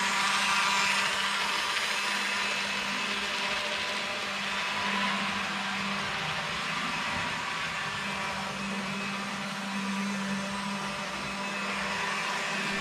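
Life-Like HO-scale shaft-drive locomotive running on the track: a steady motor and gear whir over a low hum, swelling and easing a little. It is a little bit noisy, which the owner puts down to a 3D-printed drive shaft that probably needed more filing to run smoother.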